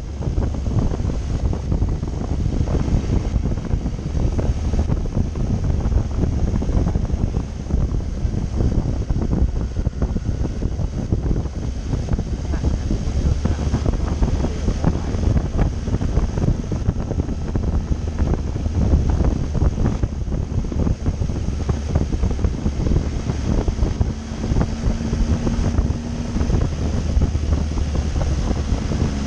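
Wind buffeting the microphone of a camera on a moving motorcycle, a loud, steady rumble, with the Triumph Tiger 800's three-cylinder engine running underneath.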